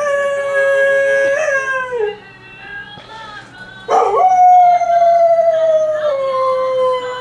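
A dog howling along to music from a television: one long howl trails off about two seconds in, and a second long howl starts about four seconds in, sliding slowly down in pitch.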